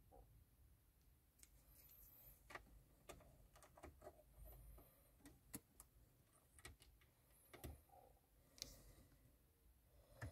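Faint scattered clicks and handling noise as a Nissan Connect 3 SD card is pushed into the SD slot of the car's dashboard head unit, with a click near the end as the volume/power knob is pressed.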